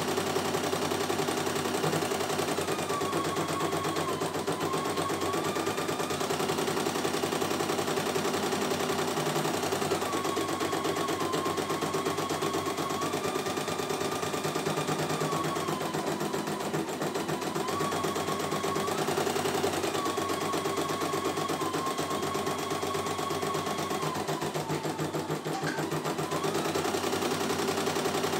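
CNY E900 embroidery machine stitching out a design: a rapid, steady chatter of the needle, with a motor whine that shifts up and down in pitch every few seconds.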